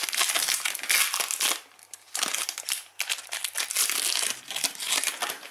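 The wrapper of a Panini Prizm basketball card pack crinkling as it is pulled open by hand. It comes in bursts, with a short lull about two seconds in.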